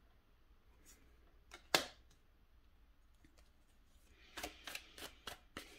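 Tarot card being handled and laid on a wooden table: a sharp tap a little under two seconds in, then a quick run of light clicks and taps near the end.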